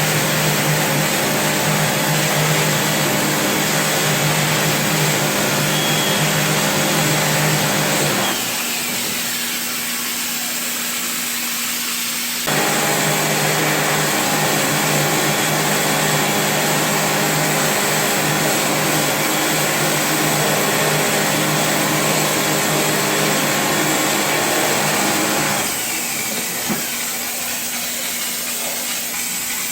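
Air-conditioner cleaning machine's electric motor running steadily with a loud hiss. It drops to a quieter hiss about eight seconds in, starts up again about four seconds later, and drops back near the end.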